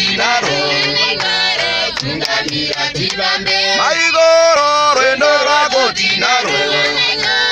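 Several men and women singing together in unison with held notes, in the cramped cabin of a crowded minibus, with occasional sharp taps.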